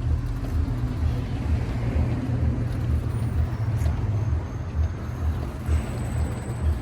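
Chevrolet Caprice Classic's V8 engine idling, a steady low drone with uneven louder pulses.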